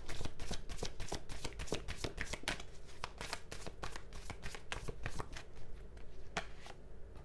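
A deck of tarot cards being shuffled by hand: a quick, dense run of soft card clicks that thins to a few scattered ticks near the end.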